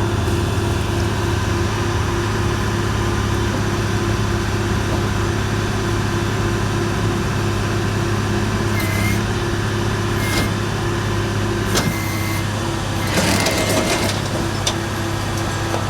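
Vehicle engine running steadily at a construction site, with a few short clicks and a brief louder rattle near the end.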